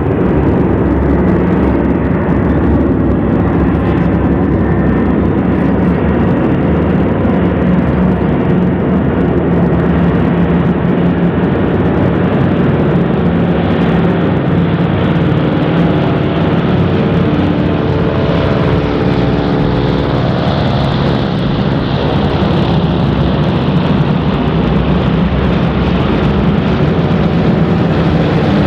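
Douglas C-47 transport planes flying overhead, a steady drone of their twin radial piston engines and propellers.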